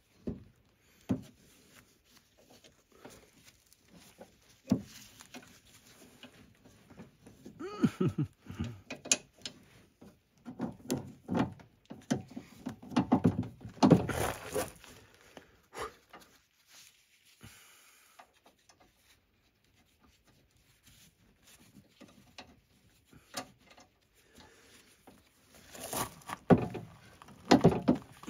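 Irregular knocks, clinks and clatter of metal hardware being handled and fitted on a riding-mower cutting deck, with busier spells about a third of the way in, around the middle and near the end, and quieter gaps between.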